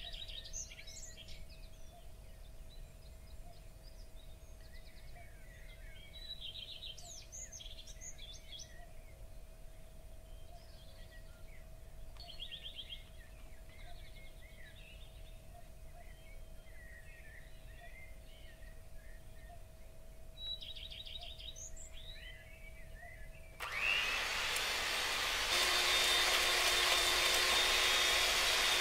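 Birds chirping faintly over a faint steady hum. About 24 seconds in, an electric hand mixer starts up loud and steady with a high whine, its beaters whipping egg whites in a stainless-steel bowl.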